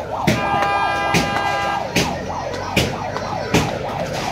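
Electronic siren warbling rapidly up and down without a break. Regular knocks come about every 0.8 s, and a steady horn-like tone sounds for about a second and a half near the start.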